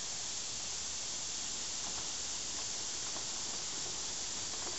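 Steady, even background hiss with a few faint soft ticks; no distinct sound of the coop or its wheels stands out.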